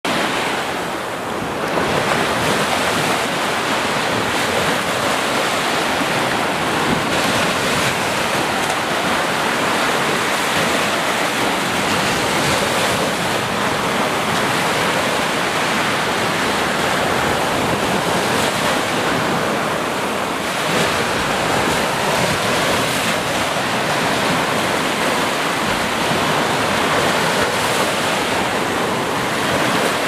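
Small waves breaking and washing up onto a sandy beach: a steady rush of surf that swells and eases slightly.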